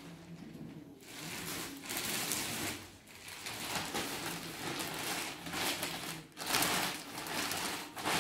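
Clear polythene garment bag rustling and crinkling as a top is handled and pulled about inside it, in several spells with brief pauses.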